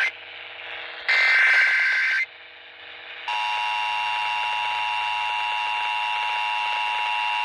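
Emergency Alert System test tones off a radio broadcast: a digital SAME header data burst ends right at the start, and another about a second in lasts about a second. After a short pause, a little before halfway, the steady two-tone EAS attention signal begins.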